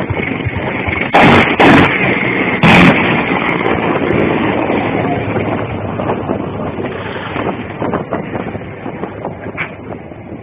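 Three loud blasts in quick succession, starting about a second in, from an Mi-24 helicopter gunship's weapons fire. They sit over a steady rushing noise that slowly fades.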